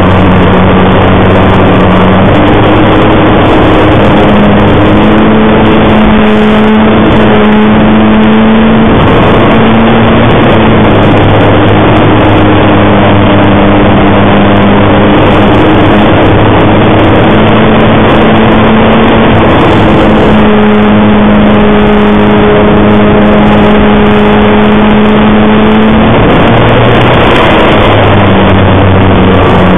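Extra 300 model aircraft's engine running in flight, heard very loud from the onboard camera together with rushing air. Its speed steps up about two seconds in, eases off around nine seconds, rises again around twenty seconds and drops back near the end.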